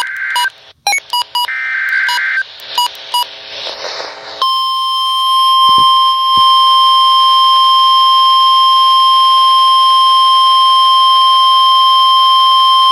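Start of an Emergency Alert System weather warning: a few seconds of short electronic beeps and data-burst warbles, the coded alert header, then about four and a half seconds in a single loud, steady high alarm tone near 1 kHz, the weather-radio warning alert tone.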